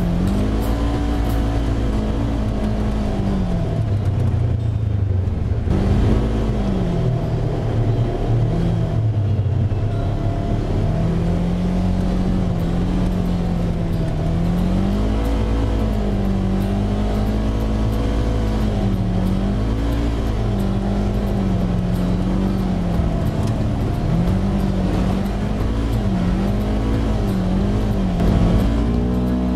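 Side-by-side UTV engine running under load on a dirt trail, its pitch rising and falling with the throttle, with a steady low rumble beneath.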